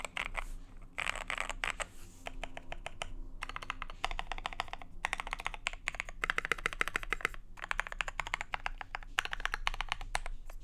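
Fast typing on a KBD67 Lite gasket-mount mechanical keyboard with a brass plate, Cream-stem linear switches (L+F Creamarons) and KAT-profile keycaps: quick runs of keystrokes broken by short pauses, stopping near the end.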